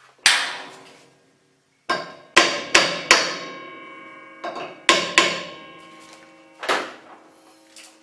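Hammer blows tapping a pulley a fraction of an inch farther onto the two-step arbor of a Covington 30-inch slab saw: about eight sharp strikes in uneven groups, the metal ringing on after each.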